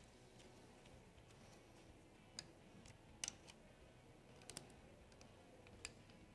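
Near silence with a few faint, sharp metal clicks, beginning a couple of seconds in: a torque wrench tightening a cam chain guide bolt to 7.4 foot-pounds.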